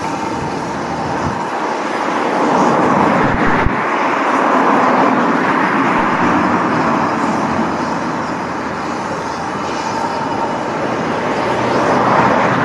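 Road traffic passing on the bridge. The noise swells as vehicles go by, a couple of seconds in and again near the end.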